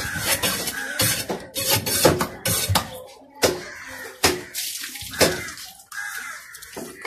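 A large fish knife chopping through a trevally on a wet wooden block: a run of irregular, wet-sounding chops, about one or two a second.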